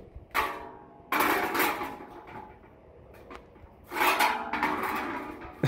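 Two round metal shields scraping and clanking against each other in three bouts, each leaving a brief metallic ring.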